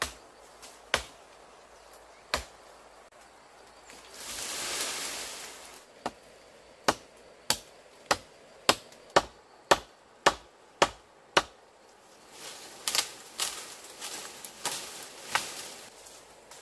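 Machete chopping into a fallen trunk: a few scattered blows, then a steady run of about ten sharp strikes, roughly two a second. Rustling and snapping of brush come before and after the run of strikes.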